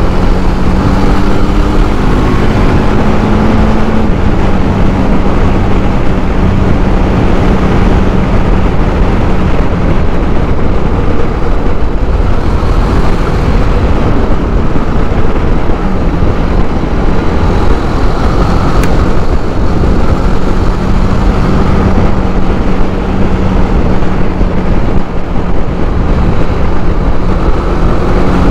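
TVS Apache RR310 motorcycle's single-cylinder engine running at a steady cruise under heavy wind rush. The engine note holds an even pitch, breaking off briefly about halfway through before settling back.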